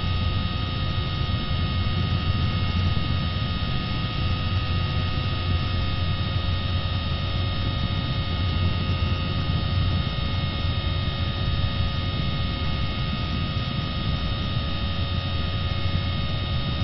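Electric motor and propeller of an RC FPV airplane running at steady throttle, a low hum under several steady whining tones with hiss, heard through the onboard microphone over the video link while the autopilot flies it home after a receiver failsafe.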